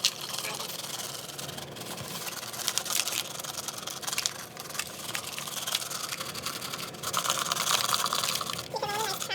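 Crispy French fried onions rustling and crackling as they are poured and scattered over a casserole, a dense run of small dry clicks, busiest about seven seconds in.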